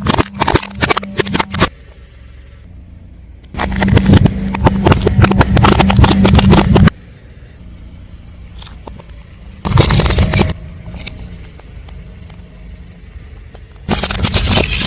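Car tyre rolling over and crushing crunchy objects: bursts of crackling and snapping, the longest and loudest lasting about three seconds in the middle, with shorter bursts at the start, about ten seconds in and near the end. Between the bursts the car's engine runs at a low steady hum.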